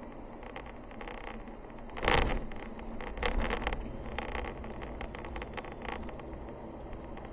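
Vehicle driving on a narrow paved mountain road, heard as a steady low road rumble. There is a loud knock about two seconds in, and a run of smaller knocks and rattling clicks just after.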